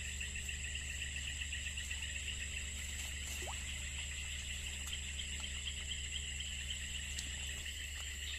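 Steady evening chorus of insects and frogs: a dense, fast-pulsing trill with a thin, steady high whine above it.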